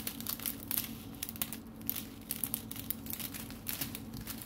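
Small plastic zip-lock bags of diamond-painting drills crinkling irregularly as they are handled and shuffled.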